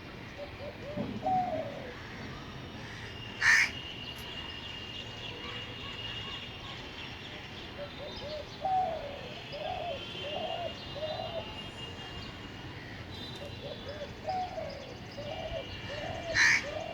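Spotted dove cooing in low, soft, repeated phrases: one short run about a second in, then longer runs around the middle and near the end. Two loud, sharp calls from another bird cut in, a few seconds in and near the end, over faint high twittering of small birds.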